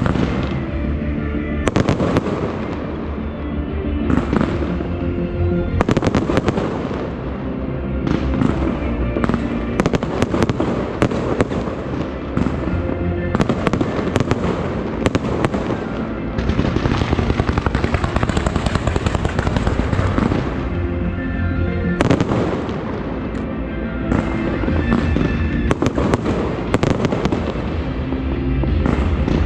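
A fireworks display: a rapid run of bangs throughout, with a dense stretch of crackling a little past the middle, over music with steady tones.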